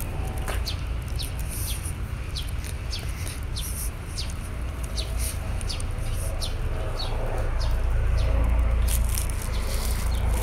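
A bird calling over and over with a short, falling chirp, about once or twice a second, over a steady low rumble.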